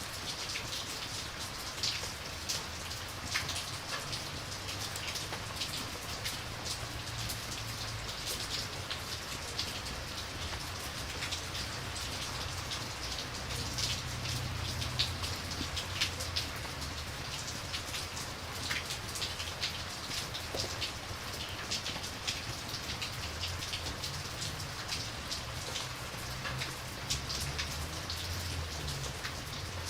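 Steady rain falling, with many small sharp drop ticks scattered all through it over a low rumble.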